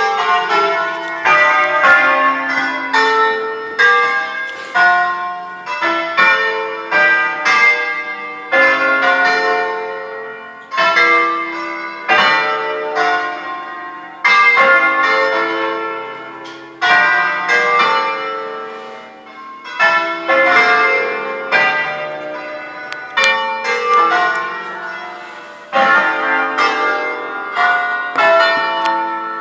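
A peal of eight church bells in D-flat, cast by L. D'Adda in 1954, rung as a solemn concerto: single bells struck one after another in quick tuneful phrases, about two or three notes a second, each note ringing on into the next, with short breaks between phrases. Heard from inside the sacristy through a phone's microphone.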